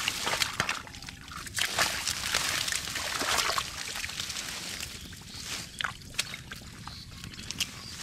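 Shallow muddy water sloshing and splashing as hands and feet work through it, pulling up water hyacinth plants, with irregular sharp wet clicks; loudest in the first half.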